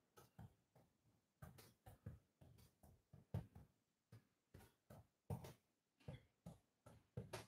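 Near silence: room tone with faint, scattered short sounds.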